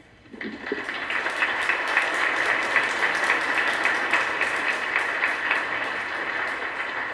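Audience applauding, many hands clapping at once; it swells up about half a second in and slowly eases off near the end.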